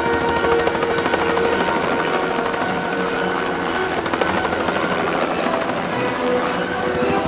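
Helicopter in flight: steady rotor and engine noise with a fast, even chop.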